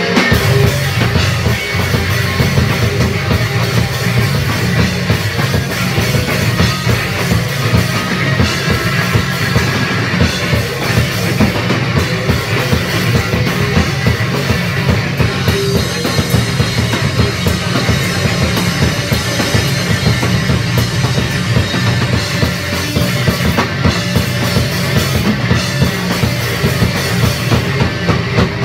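A rock band playing loud and live: electric guitar and a Tama drum kit.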